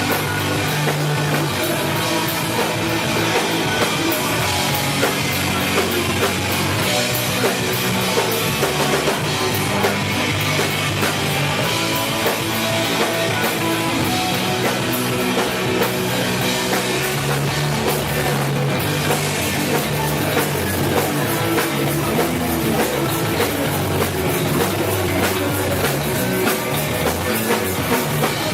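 Live rock band playing loudly: distorted electric guitars and bass over a busy drum kit, with no singing.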